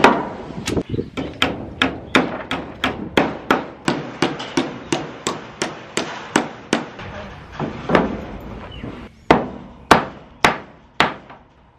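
Hammer striking nails into wooden wall boards: a quick run of blows, about three a second, then a pause and a few slower, louder single blows near the end.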